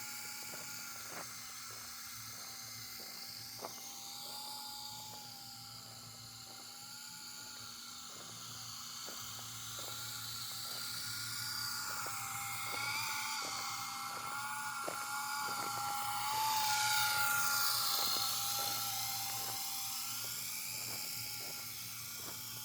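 RC helicopter in flight: a steady high motor-and-rotor whine whose pitch wavers up and down as the helicopter manoeuvres, growing louder about two-thirds of the way through as it comes closer.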